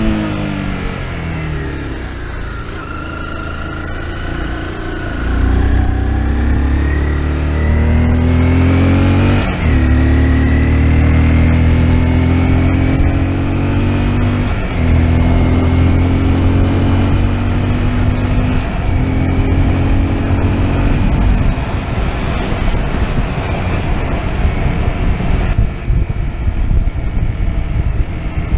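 Small sport motorcycle engine on the road. Its pitch falls for the first few seconds as it slows, then it accelerates and climbs through the gears with three upshifts, each a sudden drop in pitch, before settling to a steady cruise.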